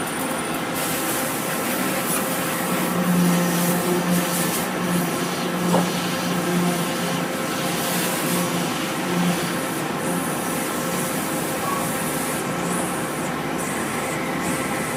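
Industrial machinery running steadily, with a rubbing, grinding hiss over a low hum; the hum grows stronger from about three to nine seconds in.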